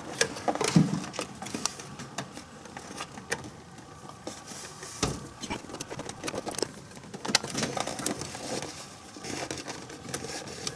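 Hands working with car wiring and plastic parts: irregular small clicks and taps with rustling, and one sharper knock about five seconds in.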